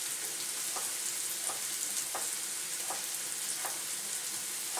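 Chopped onions sizzling steadily in olive oil in a wok, with a knife knocking on a cutting board about every 0.7 s as a courgette is sliced into rounds.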